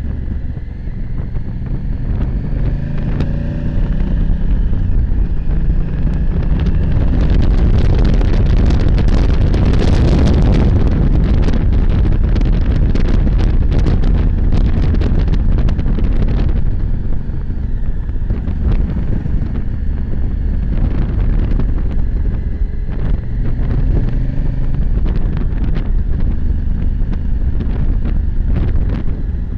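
Honda Africa Twin CRF1000L's parallel-twin engine running on the move, its note rising and falling in pitch in the first few seconds, under heavy wind noise on the helmet camera's microphone. The wind rush swells much louder for several seconds in the middle, then eases.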